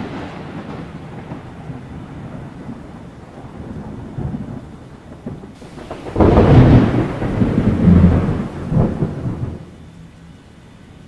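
Thunder from a thunderstorm: the rumbling tail of a clap fades at the start. About six seconds in comes a louder, deep roll that lasts some three seconds with several swells before dying away.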